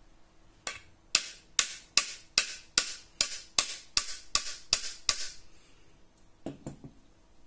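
A hammer tapping a small nail through an aluminium strip into a wooden slingbow stock: about a dozen sharp, evenly spaced strikes, roughly two and a half a second, then two or three softer knocks near the end.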